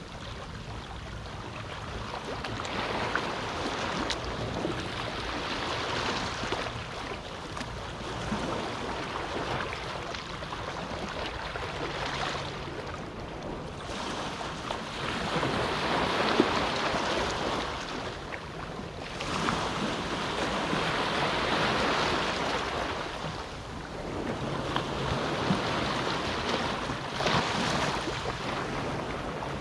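Small ocean waves washing onto a beach in calm surf, each swell rising and falling every few seconds, with some crackle as the water breaks.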